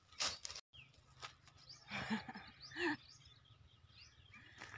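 Open-air rural ambience: scattered bird chirps over a steady low hum, after a brief rustle of dry branches at the very start.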